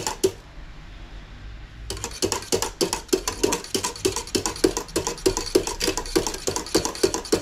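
A utensil whisking eggnog mixture in a pan, clicking against the pan about five times a second, starting about two seconds in.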